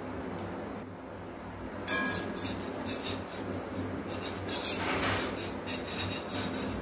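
Metal spatula scraping and rasping against an appam pan in repeated strokes as it loosens a cooked appam, loudest about five seconds in. It follows a short metallic clink about two seconds in as the pan's steel lid is lifted off.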